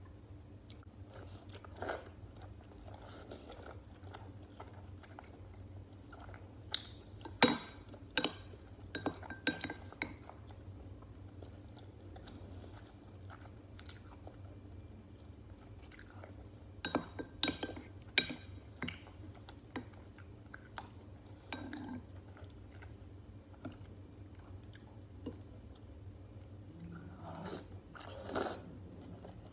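Close-miked chewing and biting of stuffed cabbage rolls, in a few short clusters of sharp clicks and crunches several seconds apart.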